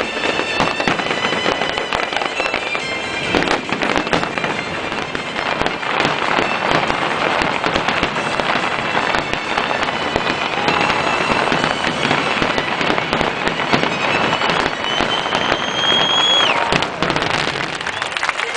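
Aerial fireworks going off in quick succession: many bangs and dense crackling from glittering shells, with the display's music playing underneath. Near the end a high whistle rises in pitch for about two seconds and cuts off sharply.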